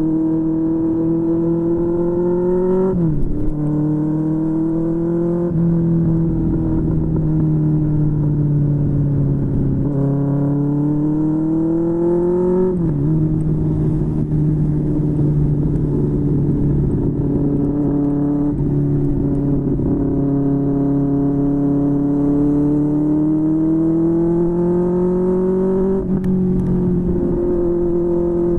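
QJMotor SRK600 inline-four motorcycle engine running through a Yoshimura R11 aftermarket exhaust, heard from on board while riding. The engine note climbs slowly in pitch and then drops sharply three times, about 3, 13 and 26 seconds in, over steady wind and road noise.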